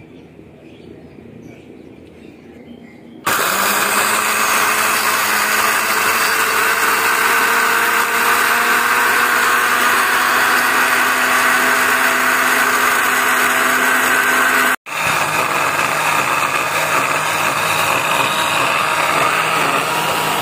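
Electric blender grinding dry eggshells into powder. The motor starts suddenly about three seconds in and runs loud, its pitch rising slowly as it goes. It cuts out for an instant about fifteen seconds in and then runs on.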